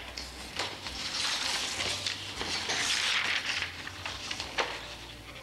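Paper sheets and glossy photo prints rustling and crinkling as they are handled and slid across a table, densest through the middle few seconds.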